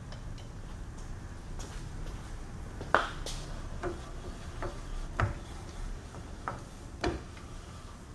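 Metal clicks and knocks from a Munding radial arm drill press's handwheels and slides as they are cranked by hand to move the arm and drill head. The clicks come irregularly, the loudest about three seconds in, with others near five and seven seconds.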